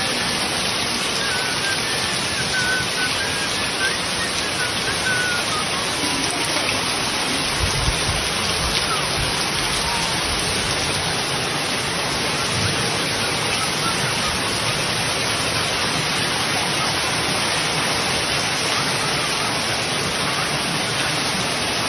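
Heavy rain pouring down steadily, a dense even hiss of rain on leaves, ground and roof, with water running off the roof edge. A few low bumps come about eight seconds in.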